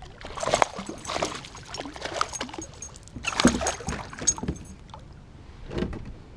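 Water splashing and irregular knocks against a plastic kayak hull as a hooked bass is brought in and landed. The loudest splash comes about three and a half seconds in.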